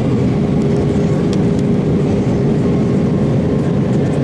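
Airbus A320 cabin noise in descent: a steady rush of airflow and jet engine noise, with a constant hum running through it.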